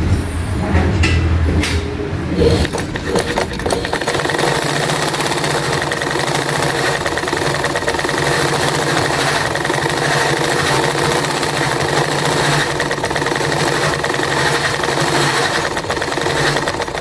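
Royal household sewing machine driven by its electric motor and belt, stitching steadily, then stopping near the end. It is a test run after clearing the jam that had locked the machine up.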